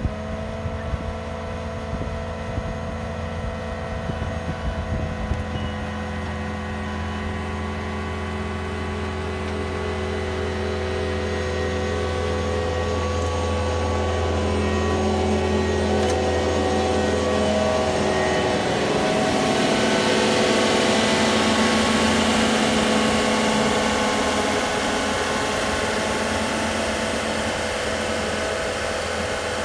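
Caterpillar compact track loader's diesel engine running steadily while it pushes and grades loose soil with a box blade. The sound grows louder and hissier through the middle, peaks about two-thirds of the way in, then eases.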